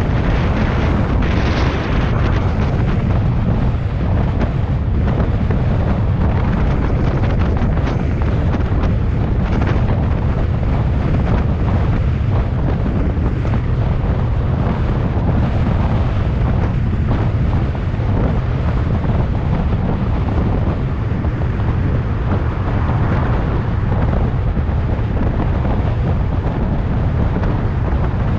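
Loud, steady wind rumble buffeting the microphone of a camera on a bicycle descending a highway at speed.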